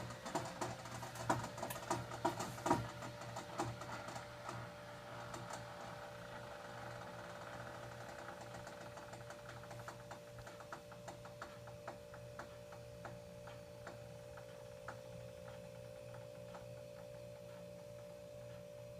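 Water cooler's cooling unit running with a steady electrical hum and a constant higher tone, with irregular rattling clicks over it that are heaviest in the first few seconds. This is the loud noise the owner hears from a cooler only a week old, which he takes for a malfunction.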